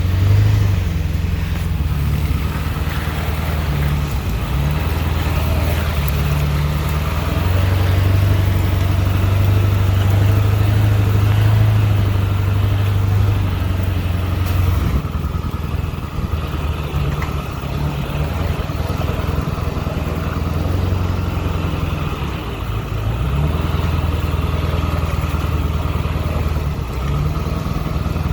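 Ford Excursion's engine labouring in two-wheel-drive low range while towing a trailer and a Chevy 1500 pickup. It pulls steadily, drops off about halfway through and builds again later.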